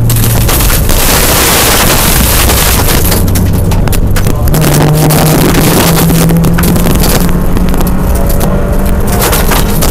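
Rally car engine pulling hard on a gravel stage, heard from inside the car over a loud rush of tyre and gravel noise with stones crackling underneath. The engine note holds lower for the first few seconds, steps up about four and a half seconds in, then climbs steadily as the car accelerates.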